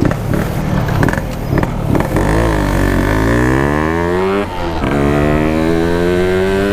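Yamaha RX-King 135 cc two-stroke single, on an aftermarket PK3 expansion exhaust, pulling away and accelerating. The engine note climbs, drops briefly at a gear change about four and a half seconds in, then climbs again.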